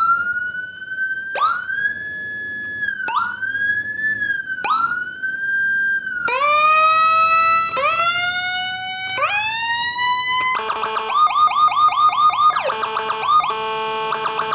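Electronic vehicle siren giving Whelen-style tones, switching between patterns. First come quick rising whoops about every one and a half seconds, then the same whoop in a lower, fuller tone. About two thirds of the way through it changes to a fast pulsing yelp of about six pulses a second, broken by a short held tone.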